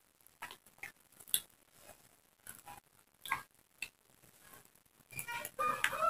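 Soft scattered clicks and crackles of fingers picking apart fried fish and rice and snapping off raw leaves on a banana leaf. About five seconds in, a bird starts calling loudly.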